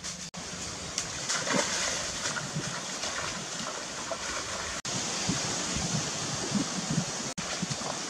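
Shallow stream water rushing steadily, with irregular splashes as someone wades in it. The sound drops out abruptly three times at edits.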